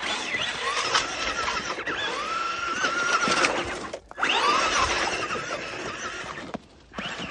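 Electric RC truck's motor whining, its pitch rising and falling as the throttle is worked while the wheels churn through snow. The whine breaks off briefly about four seconds in and again near the end.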